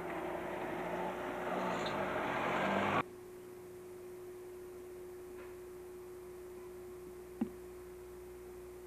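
A train running close by, growing louder, then cut off abruptly about three seconds in. After that comes a quiet background with a steady electrical hum and a single sharp click.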